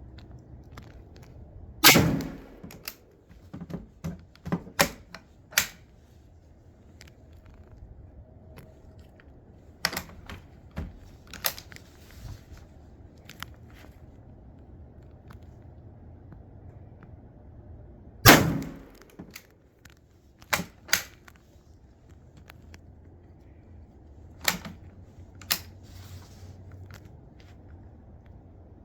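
Two shots from a Dreyse needle-fire rifle, about sixteen seconds apart, each with a short reverberating tail. Between them come sharp clicks and knocks, typical of the bolt being worked to reload.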